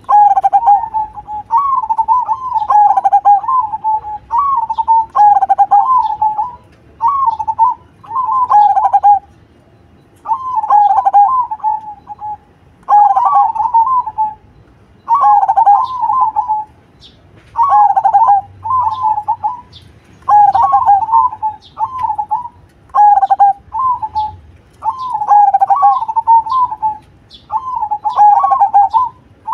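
Caged zebra dove (perkutut) singing: loud rolling, warbling coos in repeated phrases of about one to two seconds, with short pauses between them.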